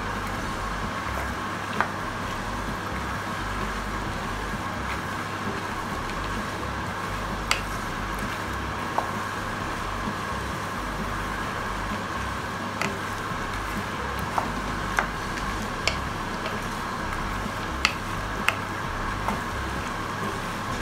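Red-skinned peanuts frying in oil in a pan with a steady sizzle while being stirred with a wooden spatula. Occasional sharp clicks sound through it.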